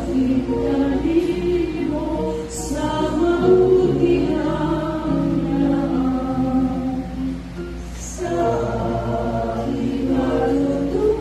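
Many voices singing a slow song together, with long held notes.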